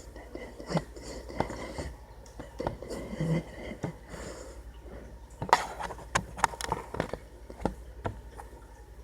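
A scattered run of sharp clicks and knocks, densest about five to seven seconds in, over a steady low hum.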